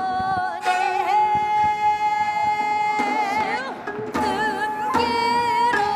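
Woman singing a Namdo minyo, a southern Korean folk song, holding a long note for about two seconds, then bending and shaking it, with janggu drum strokes now and then.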